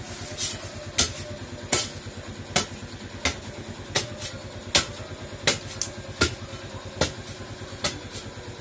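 Sharp knocks repeating about every three-quarters of a second, some in quick pairs, over a faint steady hum.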